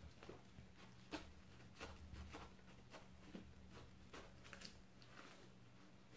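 Near silence, broken by faint, irregular ticks and scrapes of a knife blade being worked down through a ripe jackfruit's thick, knobbly rind, over a low steady hum.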